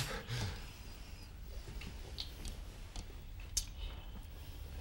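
Mahjong tiles clicking as they are handled and set down on the table: a few short, sharp clacks, the loudest about three and a half seconds in.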